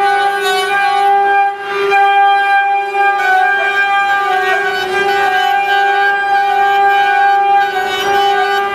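High-speed spindles of a six-spindle CNC faucet peeling machine whining steadily at one pitch as they cut brass faucet bodies, dipping briefly under two seconds in.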